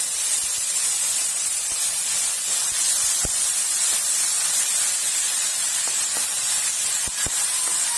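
Canned sardines in tomato sauce sizzling steadily in a hot pan with sautéed garlic and spring onion, with a few light ticks.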